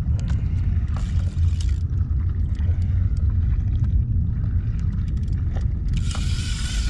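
Steady low rumble of wind and choppy sea water around a fishing kayak, with a few light clicks and a brief higher hiss near the end.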